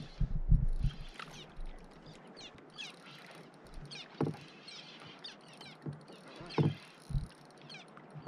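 Knocks and thumps on a fishing kayak while a hooked fish is being fought. The loudest thumps come in the first second, and single knocks follow later. Short high chirps repeat over a quiet background.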